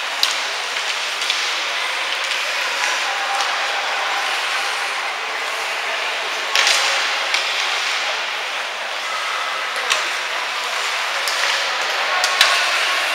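Ice skates scraping and carving across a hockey rink, a steady hiss, broken by a handful of sharp clacks from hockey sticks and the puck.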